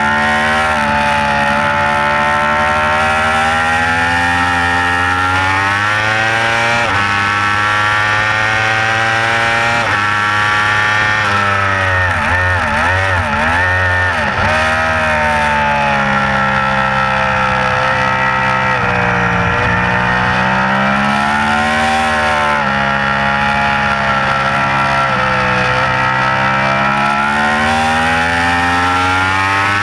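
2015 Yamaha R1's crossplane inline-four engine at racing speed, its pitch climbing under throttle and dropping at gear changes and off-throttle, with a quick wavering rise and fall of pitch about halfway through. Wind rush is heard on the bike-mounted microphone.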